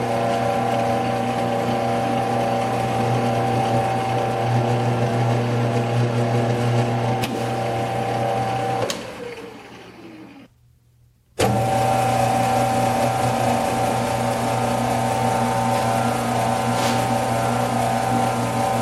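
Metal lathe running steadily with a motor hum while a tailstock die holder cuts an M6 thread on a steel stud. About nine seconds in the motor is switched off and the spindle coasts down, its hum falling in pitch to near quiet, then the lathe is running again from about eleven seconds in.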